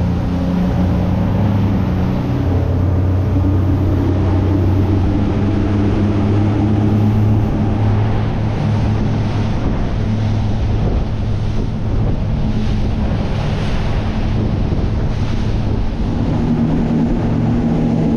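Outboard motor running steadily at speed as a boat planes across open-ocean chop, its low hum mixed with the rush of wind on the microphone and water from the wake.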